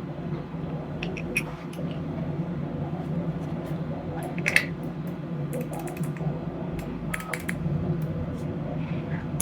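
Scattered light clicks and taps of small 3D-printed plastic clicker parts being fitted together by hand, with a few isolated clicks and a quick run of them near the end, over a steady low hum.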